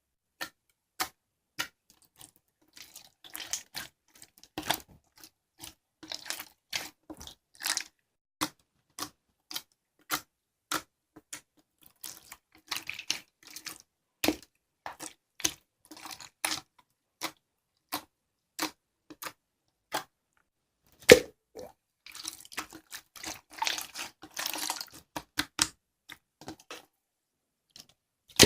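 A run of light, sharp taps, one or two a second, mixed with stretches of scratchy rustling, the longest a few seconds before the end; one tap shortly after the middle is louder than the rest.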